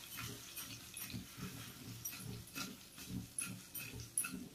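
Non-stick kadhai shaken back and forth over a gas burner, its base scraping and grinding on the grate in a rhythm of about twice a second while the patra rolls and tempering seeds slide around inside, with light ticks.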